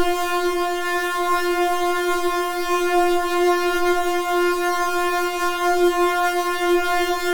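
Synthesizer holding one steady, buzzy tone at a single pitch with many overtones, wavering slightly in loudness.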